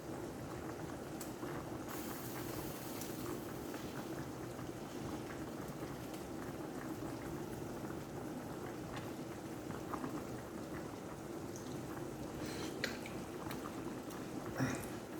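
Pot of chicken adobo simmering, a steady bubbling with faint crackles, not yet cooked through. Two small clicks near the end.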